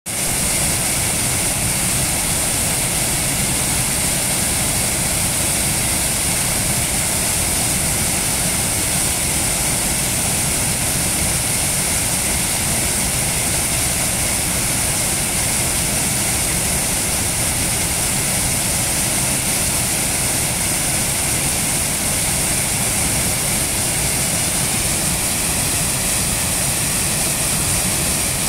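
Water pouring over a small concrete weir and splashing into a shallow river: a loud, steady rushing with no change throughout.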